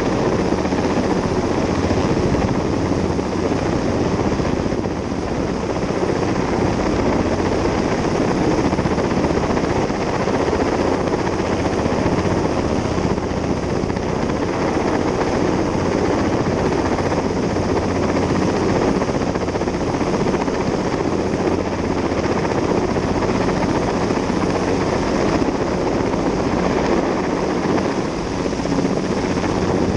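Sikorsky S-58T heavy-lift helicopter, its rotor and turbine engines running steadily, heard as an even, unbroken rush.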